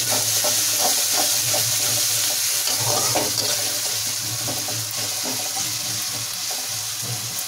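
Sliced onions with ginger and garlic frying in hot oil in a kadhai, a steady sizzle, with a metal spatula scraping and stirring them.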